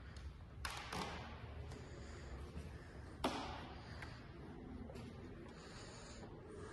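A few scattered sharp taps with short echoes over a low steady hum of room tone. Two come close together about a second in, and the loudest comes a little past three seconds.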